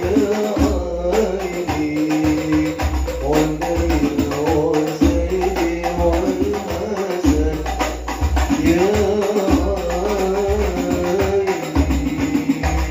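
Hadroh ensemble: several rebana frame drums with jingles beaten in a fast, interlocking rhythm, with a lead singer chanting sholawat over them through a microphone.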